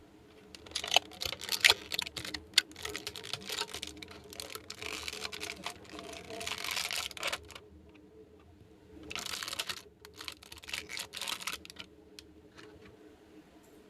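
Small plastic toy pieces being handled, making rapid clicks and rattles. There are two runs of clicking: a longer one from about a second in, then a shorter one about two seconds later.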